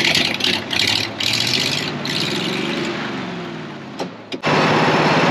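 Case 7110 tractor's diesel engine on a start attempt. An uneven, rattling run fades and wavers for about four seconds, then come two sharp clicks, and a loud steady engine noise starts abruptly near the end.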